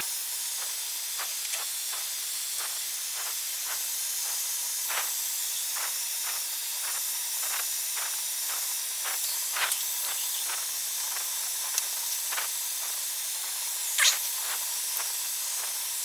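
Steady hiss in the cabin of an Airbus A320 taxiing along the runway. Faint knocks come about twice a second as it rolls, with a couple of sharper clicks near 10 and 14 seconds.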